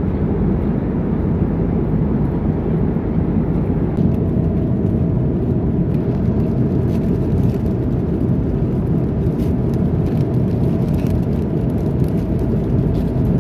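Steady low rumble of jet airliner cabin noise in flight, with a few faint clicks over it after about four seconds.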